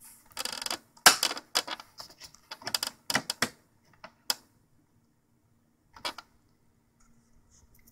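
Plastic paper width guide of an HP Deskjet 2050's input tray being slid against the paper: a run of rattling plastic clicks and scrapes for about four seconds, ending in one sharp click, then one more short click about six seconds in.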